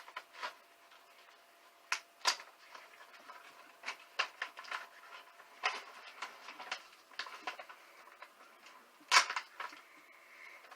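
Hands handling trading cards and their plastic holders and mailer packaging: scattered light clicks, taps and rustles, with a cluster of louder rustling about nine seconds in.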